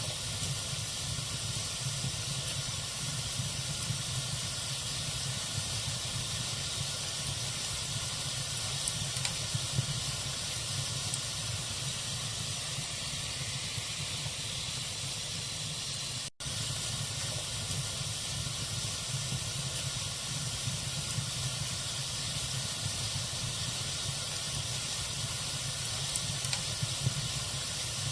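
Wood fire burning in a fireplace: a steady hiss with a low rumble and a few faint pops from the logs. The sound drops out for an instant about two-thirds of the way through.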